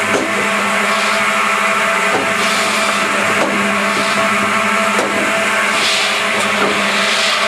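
DS-33 double circular-saw firewood processor running, its two 700 mm saw blades and drive giving a steady hum. Short cutting sounds come roughly every second as the blades saw through fed logs, with knocks of wood pieces among them.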